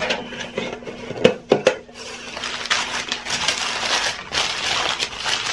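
Tissue paper rustling and crinkling as a wrapped item is unfolded by hand, with two sharp knocks about a second and a half in.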